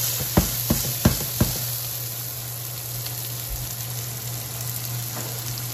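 Sliced bell peppers, onion and garlic sizzling steadily in hot olive oil in a frying pan on high heat. Four quick knocks in the first second and a half as the vegetables are stirred.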